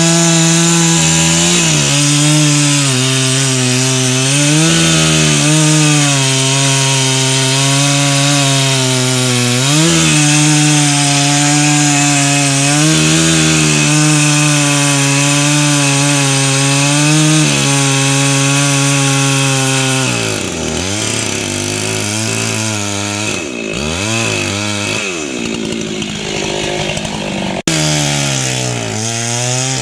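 Husqvarna chainsaw running at high revs while cutting into a boxelder trunk, the engine pitch dipping briefly under load several times. About twenty seconds in the revs drop and rise and fall repeatedly, then after an abrupt break the saw runs steadily at high speed again.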